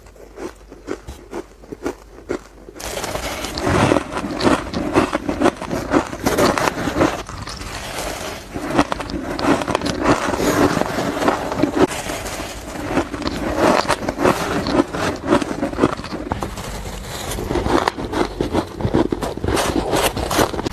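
Shaved ice being bitten and chewed, close to the microphone: a dense run of crisp, crackly crunches. It is quieter for the first few seconds, then much louder and fuller from about three seconds in.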